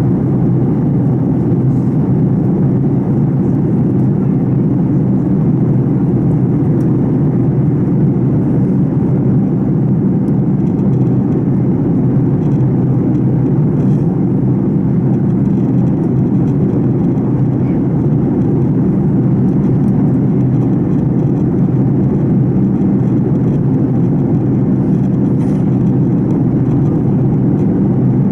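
Fokker 70's rear-mounted Rolls-Royce Tay turbofan running steadily in flight, heard from the cabin right beside it: a loud, even low drone that holds constant.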